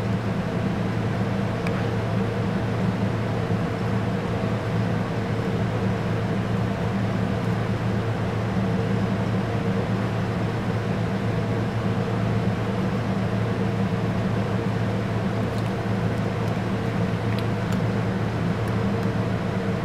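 A steady low droning hum, like a small fan or motor running, with a few faint ticks near the end.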